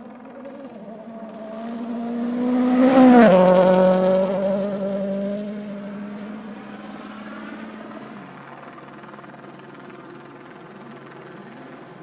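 Rally car passing at speed: the engine note climbs as it approaches, is loudest about three seconds in, then drops sharply in pitch as it goes by and fades away.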